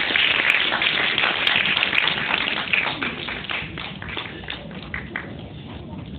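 Audience applause that thins out over the last few seconds, ending in a few scattered claps.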